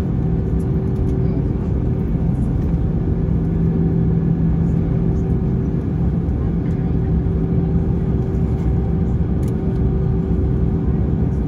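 Cabin noise of an Airbus A321ceo taxiing to the gate: a steady low rumble from the idling engines and rolling airframe, with a steady droning hum.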